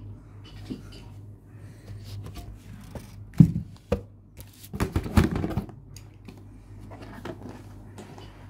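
Close handling of Beyblade Burst toy parts: scattered plastic clicks and clatter, a heavy knock about three and a half seconds in, and a rasping, scraping burst of about half a second near five seconds.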